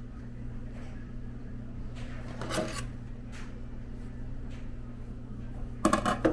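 Kitchen drawers and cupboards being handled: a soft knock about two and a half seconds in, then a quick run of clattering knocks near the end, over a steady low hum.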